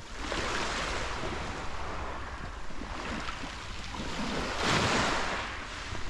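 Small sea waves washing over a pebble beach, the surf swelling at the start and again about five seconds in, with wind rumbling on the microphone.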